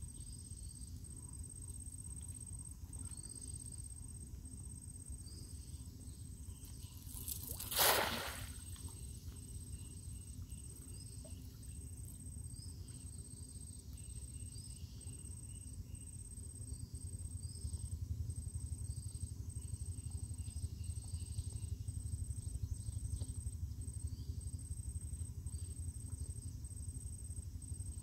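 A fishing net splashing into the shallow canal water once, about eight seconds in, as a short rush of noise. Behind it runs a steady high insect trill with short regular breaks, over a low rumble that grows louder past the middle.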